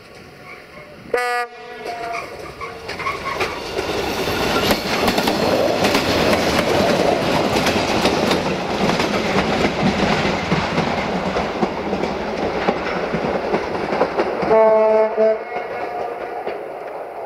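Yellow railway track-maintenance machines (a Plasser & Theurer 09-32 CSM tamper coupled with a Marub MP150) running past on the rails, with engine noise and wheel clatter that swell as they approach. A short horn blast sounds about a second in and another near the end.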